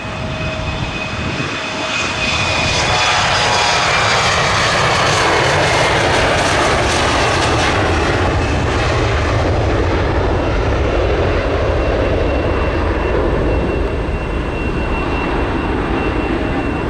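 Embraer E-175 regional jet's twin General Electric CF34 turbofans at takeoff power as it departs; a high engine whine slides down in pitch as it passes, over a loud, steady jet rumble.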